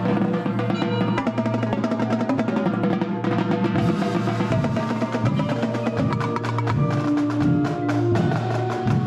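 Indoor percussion ensemble playing: rapid strokes on a set of tenor drums (quads) close by, with marimba and vibraphone notes and a steady low synthesizer tone underneath.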